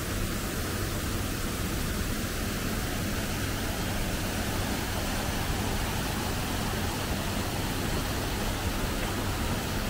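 Steady, even rush of waterfalls spilling over rock ledges into a pool.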